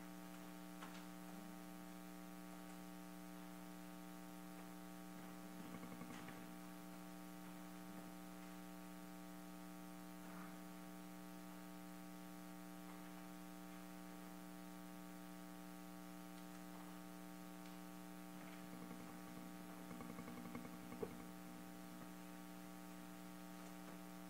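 Steady electrical hum with a stack of overtones, faint under room tone. A few soft rustles and clicks come and go, with one small knock toward the end.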